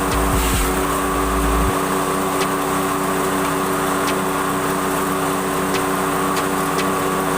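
Engine-driven grass chopper running steadily at a constant speed, a small engine's even drone with a whining top. A heavy low rumble under it stops abruptly in the first couple of seconds.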